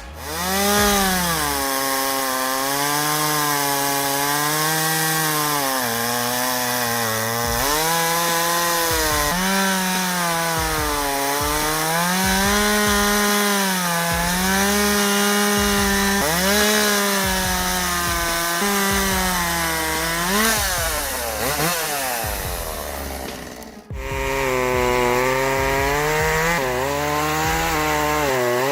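Petrol chainsaw engine cutting through wood. Its pitch keeps sagging and recovering as the chain bites into the cut and frees again. The sound drops out briefly about three-quarters of the way through, then carries on.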